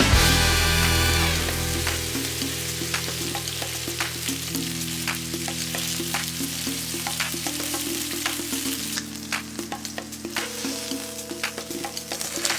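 Chicken frying in ghee in a pan for a chicken ghee roast: a steady sizzle with scattered sharp crackles and pops, and the sound of stirring.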